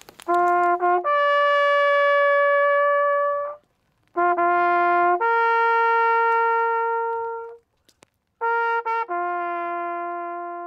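A brass horn blowing three calls, each a couple of quick short notes leading into one long held note, with short pauses between them. The last held note drops in pitch and is still sounding at the end.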